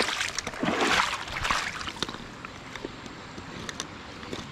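A small hand net swept through shallow creek water, splashing and sloshing for about the first two seconds, then quieter, with faint drips and small splashes.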